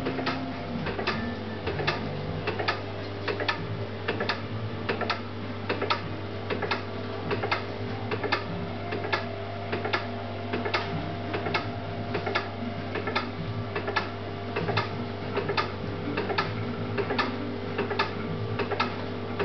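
Electrophysiology rig clicking at an even rate of about two to three clicks a second, over a steady low electrical hum.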